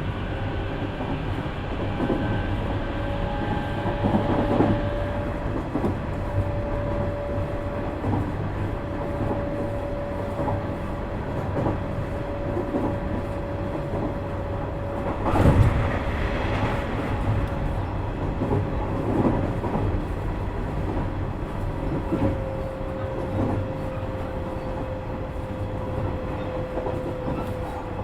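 Nishitetsu 3000 series electric train heard from inside a motor car while running between stations. There is a steady rumble with a steady whine that sags slightly near the end, and scattered wheel clacks over rail joints, the loudest a heavy knock about halfway through.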